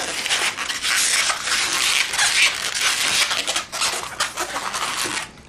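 Long black latex modelling balloon being twisted into small pinch twists by hand: continuous scratchy rubbing of latex against latex.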